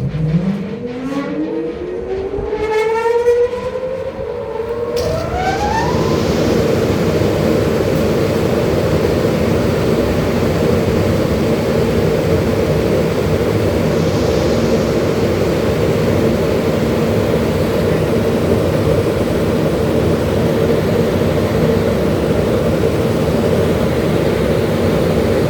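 Kitchen hood extractor fan motor switched on: a whine rising in pitch as it spins up over about six seconds, then running steadily with a rush of air and a constant hum.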